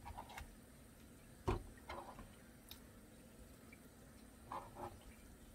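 Wet cut kimchi being picked up by hand and dropped into a ceramic bowl: faint squelches and a few small taps, the sharpest about a second and a half in.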